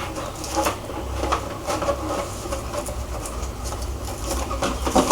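Plastic and cardboard packaging rustling, with scattered light clicks and knocks, as a keyboard is lifted out of its box; a low hum runs underneath.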